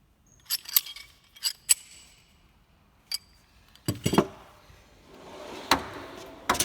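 Metal hand tools clinking against each other in a toolbox drawer as they are handled: a few sharp clinks, then a thump about four seconds in and a rough sliding rattle of a toolbox drawer on its runners near the end, with more clinks.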